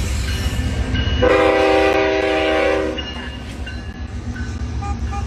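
Train horn sounding one loud chord of held notes about a second in, lasting about two seconds, over the steady low rumble of a passing train.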